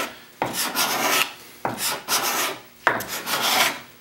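Putty knife used as a scraper, cutting across a white oak board in three strokes, about one a second. Each stroke starts with a sharp bite and runs on as a rasping scrape that fades off; it is taking off fine shavings.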